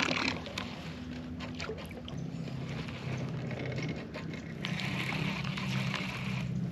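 Bass boat's electric trolling motor humming steadily, stepping up in pitch twice as it is turned up, with a few light clicks over it.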